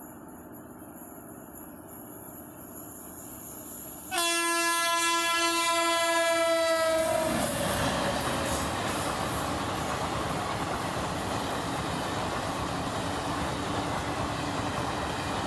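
WAP-7 electric locomotive horn sounding one long blast about four seconds in, its pitch dipping near the end, over the rising rush of the approaching train. Then the Janshatabdi Express runs past with a steady rush and wheel clatter on the rails.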